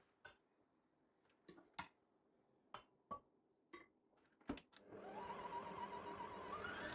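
A few light clicks and knocks of objects being handled, then water starts running from a tap about five seconds in. The pitch of the running water rises near the end, as a container fills.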